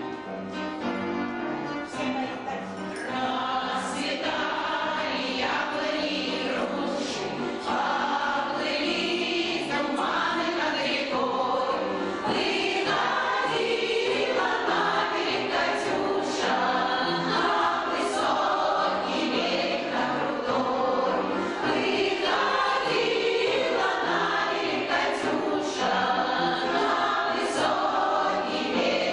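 A choir of veteran amateur singers performing a song with instrumental accompaniment.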